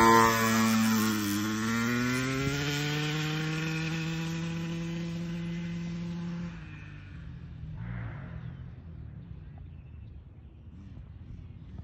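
KTM 50 mini dirt bike's single-cylinder two-stroke engine revving as it pulls away: the pitch dips about a second in, then climbs steadily while the sound fades. About six and a half seconds in it drops to a faint, distant drone.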